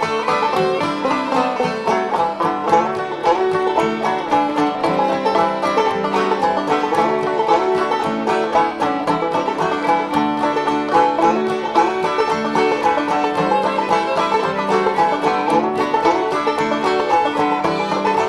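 Background music: fast banjo picking in a bluegrass style, a steady stream of quick plucked notes.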